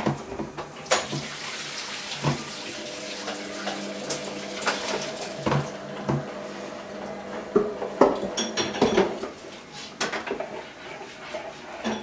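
Cockatiel's beak pecking and tapping at the lid of a plastic food container: a series of light, irregular clicks and knocks. Beneath them runs a steady hiss with a faint hum, like running water, which stops about nine seconds in.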